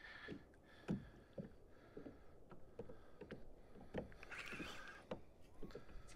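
Quiet sounds aboard a plastic fishing kayak on calm sea: scattered soft knocks and light water lapping at the hull, with a brief hiss about four seconds in.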